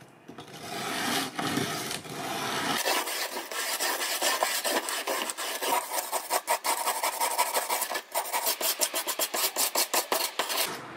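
A stiff-bristled brush scrubbing a rusty steel knife blade in water to strip surface rust and dirt. It makes a continuous rasping scrub of back-and-forth strokes that turn quick and even near the end, about five strokes a second.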